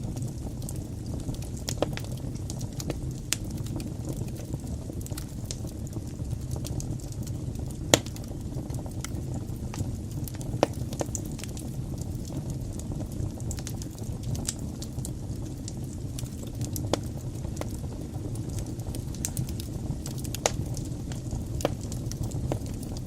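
Fire burning in a fireplace: a steady low rumble with scattered crackles and pops, a sharp pop about eight seconds in and another near eleven.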